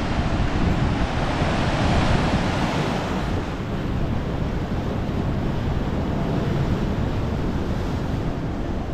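Ocean surf washing in steadily, with wind buffeting the microphone; the surf swells louder about two seconds in.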